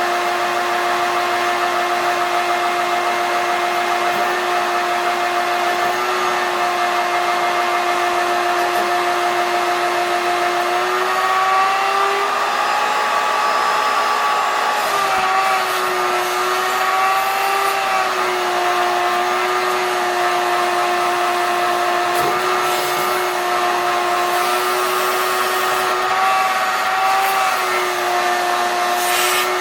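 A steady electric motor whine, a pitched hum with overtones. It rises slightly in pitch about eleven seconds in, wavers for several seconds, and wavers again near the end.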